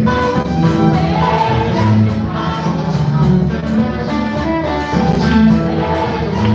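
Live gospel worship music: several voices singing into microphones over amplified instrumental backing, with a steady fast beat ticking high above.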